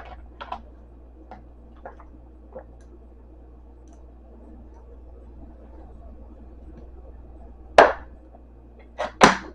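Quiet room tone with a steady low hum, a few faint ticks, then a sharp knock or clink about eight seconds in and two more close together near the end.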